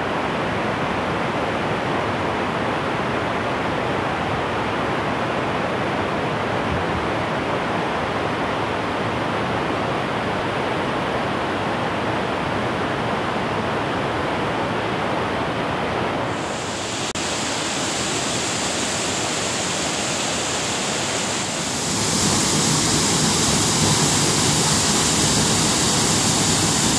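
Steady rush of a fast mountain stream's water. About two-thirds of the way through, the sound turns brighter and hissier, then grows louder.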